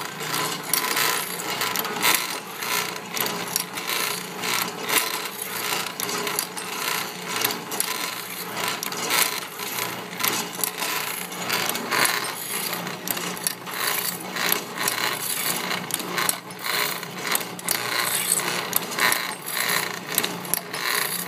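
Foley Belsaw SF1000 automatic saw sharpener running: a steady motor hum with a regular mechanical stroke-and-click about once a second as it works a circular saw blade tooth by tooth.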